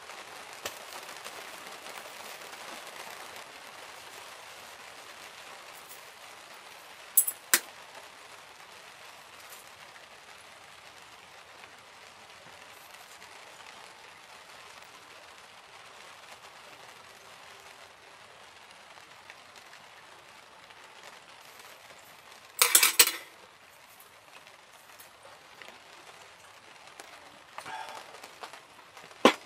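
Sharp clinks of chopsticks and tableware on the dishes and table. There are two a little after seven seconds in, a louder cluster at about twenty-three seconds, and a few more near the end, over a steady soft hiss of rain on the tent.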